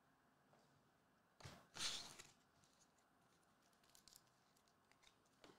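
Near silence: quiet room tone, broken by one brief soft noise about one and a half to two seconds in.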